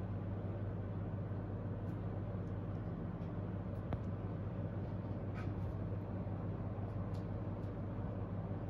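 Steady low background hum with a few faint ticks scattered through it.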